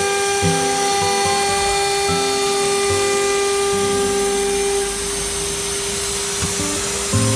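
CNC router's water-cooled spindle whining at a steady high pitch, with the axis drive motors humming in short notes that change pitch as the gantry moves. The whine weakens about five seconds in.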